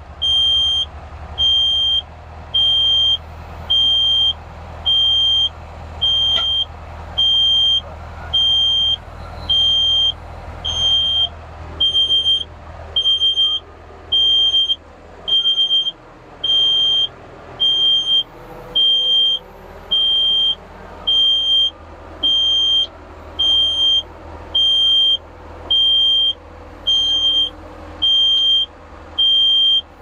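Yanmar SV40 mini excavator's warning beeper sounding a steady high beep about once a second while the hydraulic quick coupler is switched to release, over the diesel engine running. Partway through, the hydraulics whine, rising and falling as the arm works the coupler onto the bucket.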